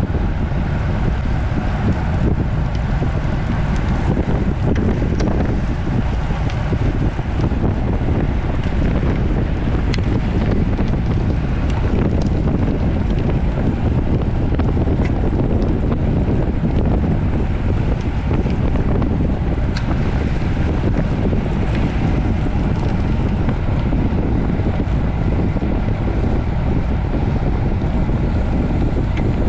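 Steady wind buffeting a rider's camera microphone while riding at race speed on a road bicycle.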